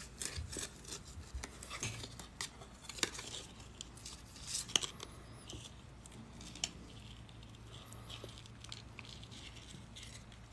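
A stiff paper tag rustling and small metal chainmail rings clicking as they are handled and the tag is fastened on: scattered light clicks and crinkles, busiest in the first half.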